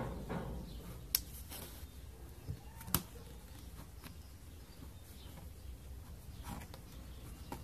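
Needle-nose pliers tapping and scraping on thin tinplate cans as a tomato paste can insert is pushed down into a cat food can, giving a few scattered sharp metallic clicks, the loudest about one and three seconds in.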